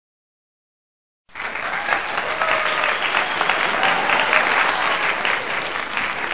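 Crowd applause, many hands clapping densely and evenly. It starts suddenly about a second in, out of dead silence.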